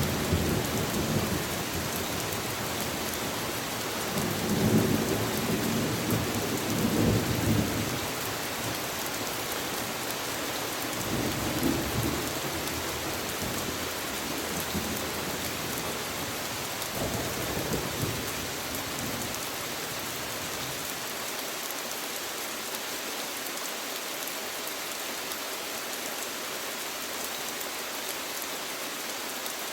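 Steady rain falling, an even hiss throughout. Several low rumbling swells come and go in the first two-thirds, then fade out, leaving only the rain.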